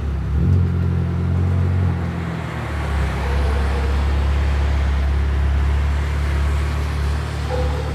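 Haier air conditioner running with a loud, low machine hum that comes up sharply at the start, shifts in pitch about two and a half seconds in, then holds steady.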